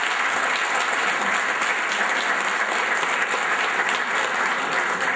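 Audience applauding, a steady, dense clapping from many hands.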